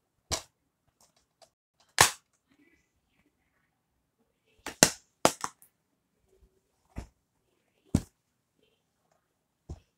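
Plastic DVD cases clicking and snapping as they are opened, closed and handled: a string of about nine sharp clicks, some in quick pairs.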